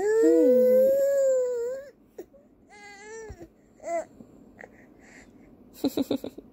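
A four-month-old baby on his tummy gives a long whining cry of about two seconds, then a couple of shorter, fussy whimpers. A quick run of short sounds follows near the end.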